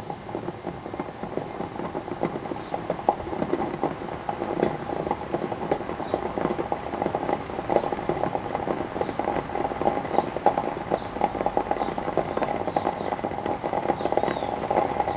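Water crackling and popping as it starts to boil around a small mains transformer submerged in a jar, its shorted winding overheating under 240 volts. The pops come as a dense, uneven patter that grows busier in the first couple of seconds.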